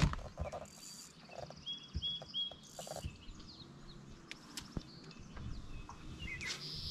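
Birds calling: short, high chirps repeated several times in quick runs, with a few sharp clicks and knocks between them.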